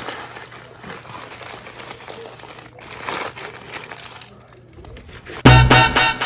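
Paper takeout wrapping crinkling and rustling as the food is handled. About five and a half seconds in, loud music with a quick pulsing beat starts suddenly.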